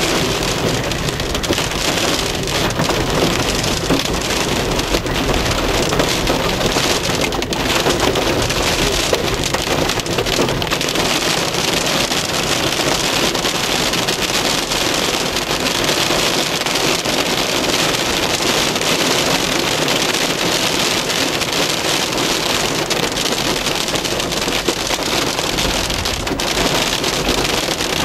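Hail and rain pelting the roof and windshield of a moving car, heard from inside the cabin: a dense, steady patter of countless small hits.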